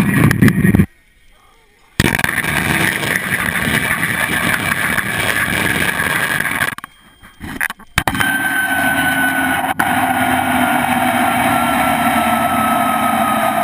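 Steel zipline cable whirring and humming as a rider's pulley trolley runs along it, loud and steady, with a short break in the middle. After the break a whine in the cable slowly falls in pitch.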